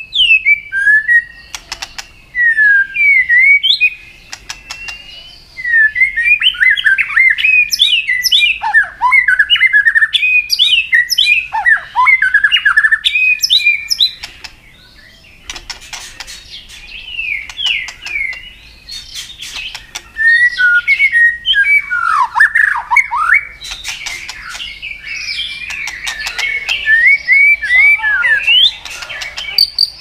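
White-rumped shama singing a long, varied run of quick whistled phrases that sweep up and down, mixed with sharp clicks, broken by a few short pauses.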